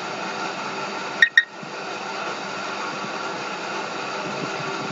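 Steady background hiss with a faint hum, broken about a second in by two sharp computer-mouse clicks in quick succession.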